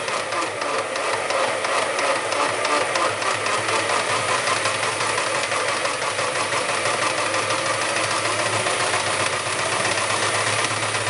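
Electric jigsaw mounted under a homemade scroll-saw table, running steadily with a fast chattering of blade strokes, its speed set by turning a variable transformer that feeds it.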